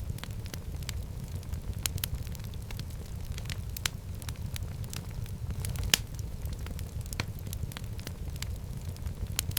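Wood fire burning in a fireplace: a low steady rumble of the flames with irregular crackles and pops, the sharpest pop about six seconds in.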